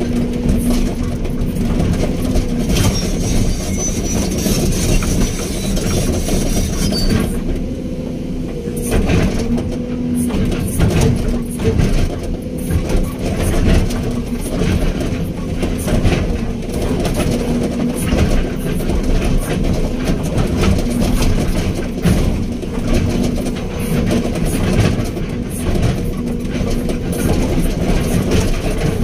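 Hydraulic excavator's diesel engine running steadily under load, with frequent irregular clanks and rattles from the working machine. A thin high whine comes in about three seconds in and stops some four seconds later.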